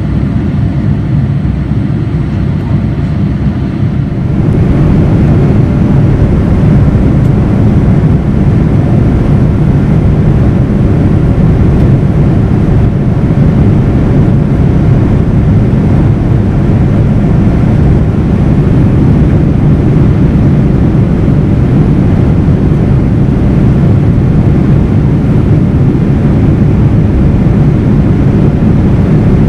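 Steady cabin noise of a Boeing 787-9 in flight: the engine and airflow roar heard from a window seat over the wing. It steps up louder and brighter about four seconds in, where the recording cuts to another take.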